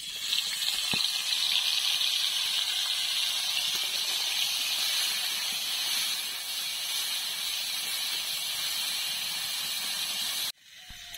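Crab pieces frying in hot mustard oil in an aluminium kadai: a loud, steady sizzle that starts suddenly as they hit the oil, with a light clink about a second in. The sizzle cuts off suddenly near the end.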